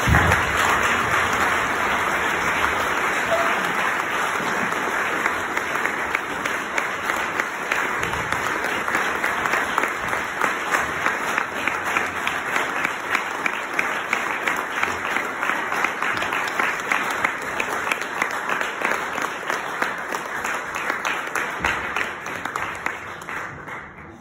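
Audience applauding, starting at once and going on steadily before dying away near the end.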